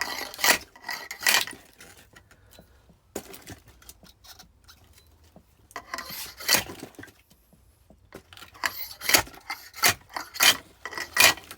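Wedge-head splitting axe struck lightly into firewood, splitting it into kindling: sharp woody knocks, two near the start, one in the middle and a quick run of four near the end.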